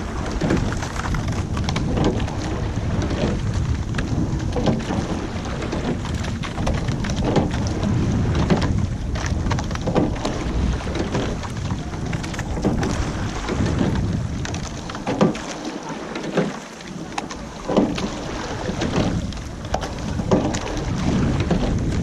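Wind buffeting the microphone over water lapping and splashing around a sculling boat, with sharper splashes every couple of seconds.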